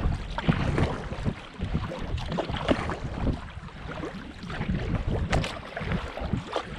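Kayak paddle strokes: the blades dipping and pulling through calm water with irregular splashing and dripping, with some wind on the microphone.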